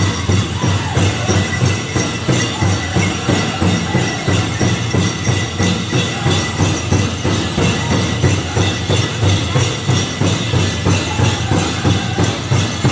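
Powwow drum group beating a large hand drum in unison, in a steady, even beat of several strokes a second, with singing over it, for a men's chicken dance song. Bells on the dancers' regalia jingle over the drumming.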